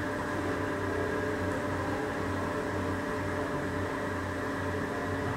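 TOS engine lathe running: a steady mechanical hum with several held tones and a low pulsing drone, while an axis traverses.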